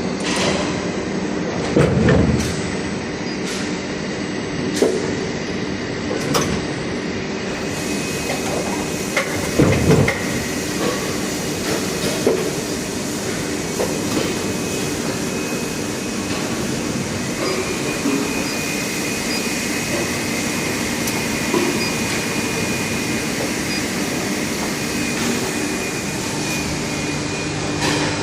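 Haitian plastic injection moulding machine running: a steady mechanical hum with a few louder clunks, about two and ten seconds in. A thin high whine joins at about seventeen seconds and holds.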